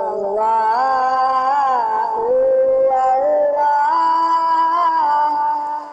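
Background music: a wordless melody of held notes that glide smoothly from one pitch to the next.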